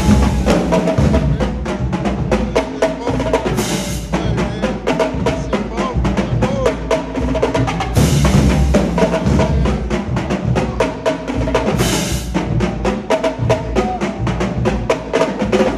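Marching drumline playing a cadence: rapid snare drum strokes over low drum hits, with cymbal crashes about every four seconds.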